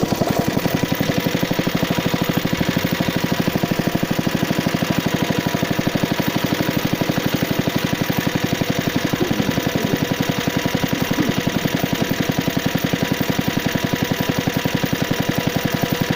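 75cc Suffolk two-stroke petrol engine of a cylinder lawn mower running steadily, its firing beats rapid and evenly spaced with no change in speed.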